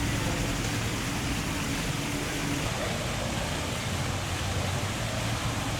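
Steady outdoor street noise with a low engine hum underneath that fades out about two and a half seconds in.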